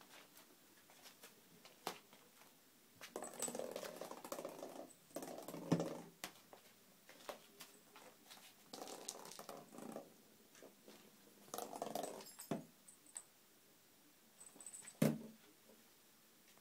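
A kitten playing with a plastic ball on a wooden floor and rug: several short runs of scuffling and rolling, with a few sharp knocks, the loudest about three-quarters of the way through.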